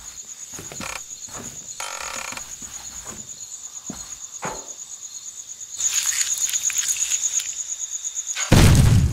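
Crickets chirping in a steady, rapid pulsing trill, getting louder about six seconds in, with soft taps and a short creak about two seconds in. A loud, low thud comes near the end.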